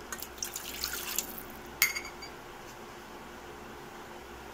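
Water poured from a cup into a metal cooking pan, splashing for about a second. A single sharp ringing clink follows shortly after.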